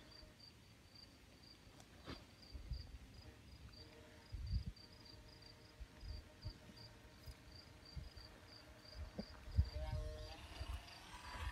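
An insect chirping in a high, even, rapid pulse, with gusts of wind rumbling on the microphone, the strongest about four and a half seconds in and again near the end.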